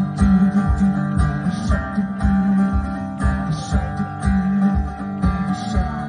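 Acoustic guitar strummed live in a steady rhythm, with a low thump on each beat about twice a second.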